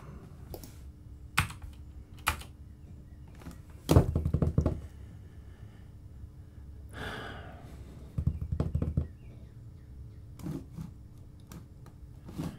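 Computer keyboard typing: scattered single key presses, with a quick run of keystrokes about four seconds in and another just after eight seconds.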